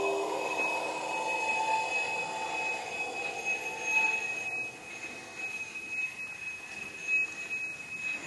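Experimental ensemble music: a hanging ring-shaped percussion disc, struck with a mallet, rings and slowly fades over the first few seconds. Under it a steady high tone is held throughout.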